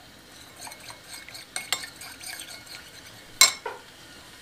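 Metal spoon stirring honey into warm water in a ceramic bowl, with light clinks against the bowl's sides. About three and a half seconds in there is one louder clink as the spoon is set down in the bowl.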